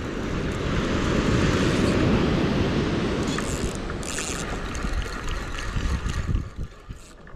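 Wind buffeting the microphone over the rush of breaking surf, swelling over the first couple of seconds and easing off near the end.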